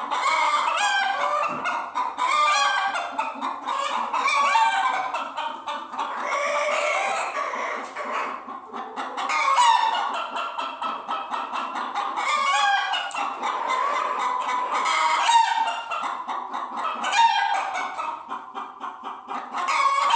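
Several hens clucking and cackling, their calls overlapping and running on without a break.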